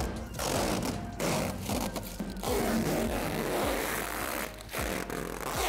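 Clear protective plastic film being peeled off a polycarbonate basketball backboard, crinkling and crackling in several pulls with short pauses between them.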